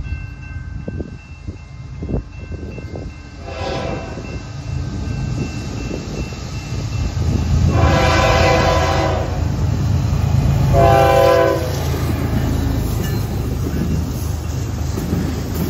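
Diesel freight locomotive sounding its horn: a short blast, a long one, then a shorter one, with a fourth starting near the end. Under the horn is the steady rumble of the engine and the passing train, which grows louder as the locomotive comes by.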